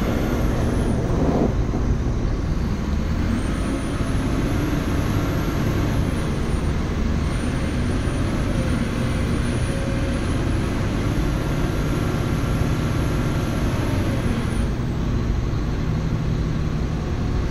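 A 2016 Caterpillar 972M wheel loader's six-cylinder diesel engine running steadily while the lift arms lower the bucket, with a faint high whine that drifts up and down above the engine.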